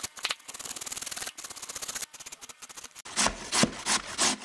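Peeled zucchini being grated by hand on the coarse side of a metal grater: a fast run of rasping strokes that gives way, about three seconds in, to slower, heavier separate strokes.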